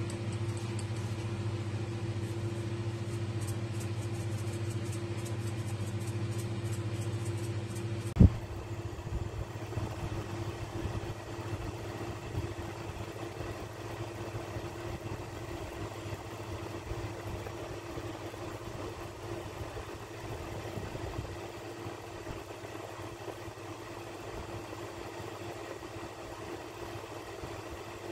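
A steady mechanical hum, then a sharp knock about eight seconds in. After the knock, milkfish in vinegar broth simmers in a stainless steel pot, with a soft crackle of bubbles over a fainter hum.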